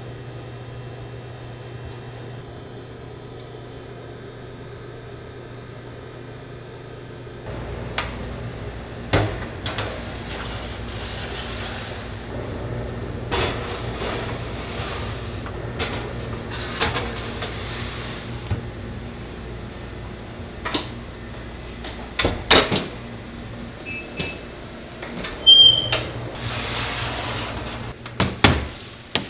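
Commercial bakery oven and its metal trays: a steady machine hum, then metal baking trays and wire racks sliding and clanking as they are pulled out and set down, with stretches of hiss. A few short electronic beeps sound near the end.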